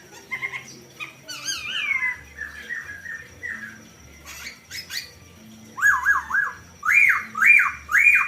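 Poksay jongkong (a laughingthrush) giving loud whistled song phrases: runs of rising-and-falling notes, ending in three long arched whistles. A faint steady high tone sits underneath.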